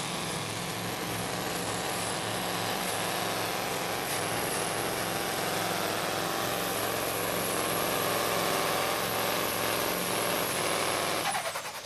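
Magirus Deutz pulling truck's diesel engine at full power, dragging a weight sled, a loud steady run with a thin high whistle above it. It cuts off just before the end.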